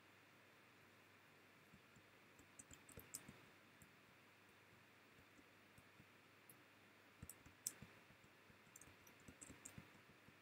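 Faint, scattered clicks from working a computer, over near-silent room tone. The clicks come in small clusters, a few about two and a half seconds in and a busier run in the second half.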